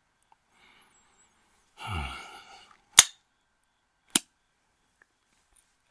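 A man's soft sigh, falling in pitch, followed by two sharp clicks a little over a second apart.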